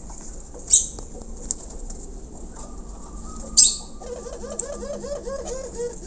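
Barbary doves flapping their wings in a wire cage as a hand reaches in: two brief bursts of wing-flapping, about a second in and again just past halfway. In the last two seconds a dove starts a low, rapidly repeated cooing.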